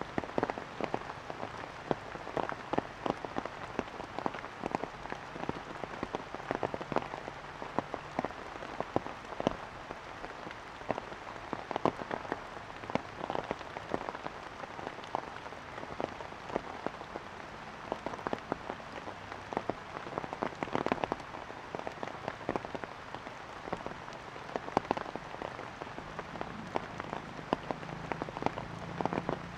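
Rainwater drops falling onto surfaces after heavy rain: a dense, irregular scatter of sharp drips over a steady hiss.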